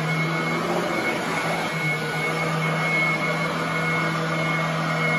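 Royal commercial upright vacuum cleaner running steadily over carpet: a rush of air with a steady high-pitched whine and a low motor hum.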